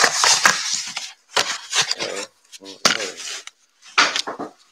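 Handling noise right by the microphone: hands rubbing and knocking against packaging and the tabletop in irregular bursts, with a few sharp clicks.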